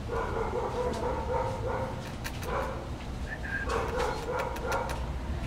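Basset hound puppy barking in runs of short, quick barks, several a second, with a pause midway, mixed with scattered sharp clicks.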